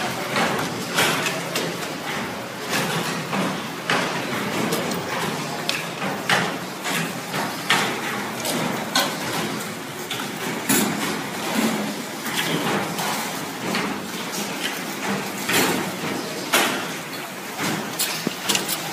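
Multi-spindle automatic transformer winding machine running: a steady mechanical noise with irregular sharp clicks and clacks, several a second.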